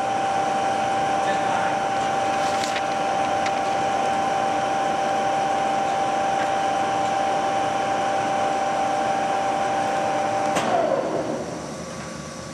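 Monarch toolroom engine lathe running with its spindle at 190 RPM, giving a steady high gear whine. About ten and a half seconds in there is a click, and the whine falls in pitch and fades as the spindle slows, leaving a quieter machine hum.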